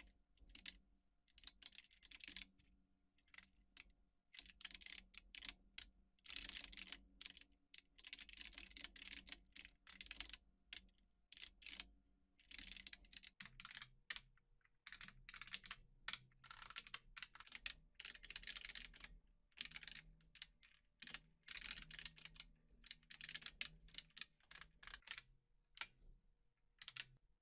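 Typing on a computer keyboard: quick runs of key clicks in irregular bursts, with short pauses between.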